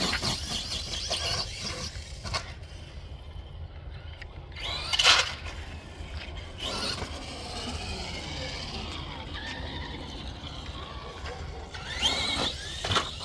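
ECX AMP MT 1/10-scale RC truck driving, its electric motor and freshly installed metal transmission gears whining up and down in pitch as it speeds up and slows. The whine surges loudest about five seconds in and again near the end.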